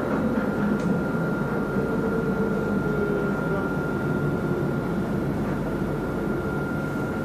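Tram in motion, heard from inside the passenger car: a steady rumbling ride noise with a constant high whine over it.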